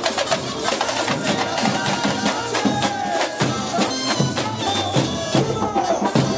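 Carnival batucada drum corps playing a fast, driving samba rhythm on bass drums and other percussion, with a pitched melody line over the drums.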